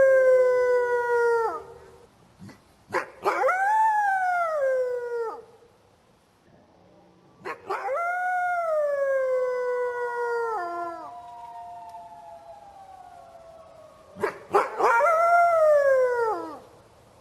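Wolf howling: a series of long howls, each rising quickly and then sliding slowly down in pitch. The end of one howl is followed by three more, the third the longest, with a fainter lower tone trailing on after it. A sharp click comes just before each of the later howls.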